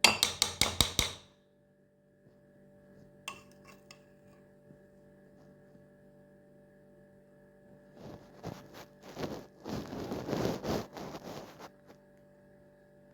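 A quick run of about eight clinks of a utensil against a dish in the first second. Later, about four seconds of rough scraping and rubbing strokes.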